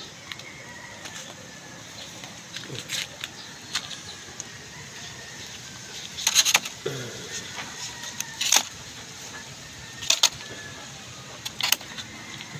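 Scattered short, sharp clicks and rustles, with a few louder ones between about six and twelve seconds in, over a faint steady background.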